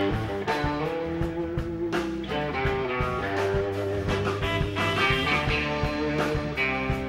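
Live blues band playing an instrumental passage: an electric guitar lead with long held notes over bass and drums.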